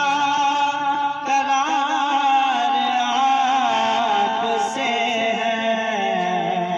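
A man's voice singing an Urdu naat (devotional praise song) into a microphone, drawing out long held notes with wavering, ornamented turns between the lines of the verse.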